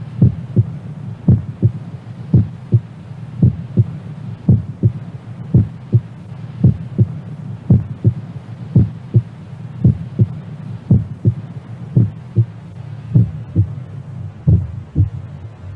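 Low heartbeat-like thumps in pairs, about one pair a second, over a steady low hum and a faint hiss, as part of a dark experimental ambient track.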